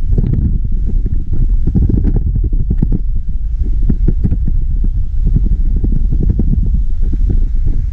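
Wind buffeting the microphone: a loud, continuous low rumble that surges and drops irregularly.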